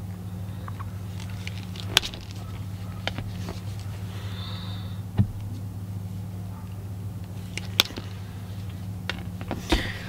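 Hand wire strippers clicking and snipping as they strip the ends of thin red and black wires: several sharp clicks spread out over a steady low hum.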